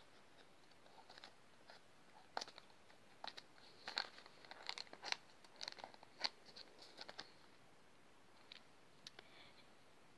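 Faint crinkling and tearing of small packaging being opened by hand, a scatter of soft crackles and clicks that thins out near the end.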